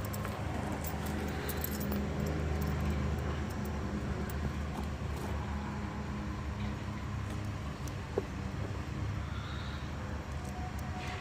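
Light metallic clicks and taps of a battery terminal and hand tool being worked onto a car battery post, with one sharper click about eight seconds in, over a steady low background hum.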